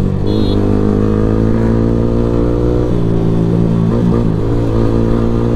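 Sport motorcycle with a modified aftermarket exhaust, riding at steady revs, its exhaust note holding even with a slight change in tone about halfway through.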